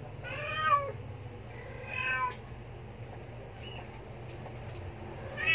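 Very young kittens mewing while nursing: four high-pitched mews, the two loudest in the first two and a half seconds, a faint short one in the middle and another right at the end.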